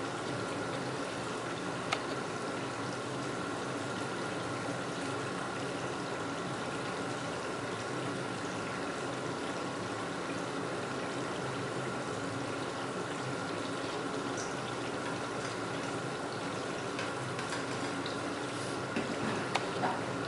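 Steady sizzling and bubbling of sliced potatoes frying in oil in a pan, with a few light clicks.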